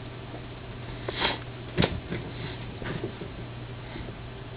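A steady low hum, with a person sniffing once about a second in and a sharp click a little later.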